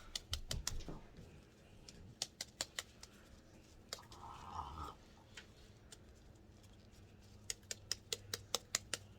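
Faint, irregular small clicks and taps, with a short rustle about four seconds in: weighting beads and grit rattling as they are shaken out of a reborn doll's vinyl limb.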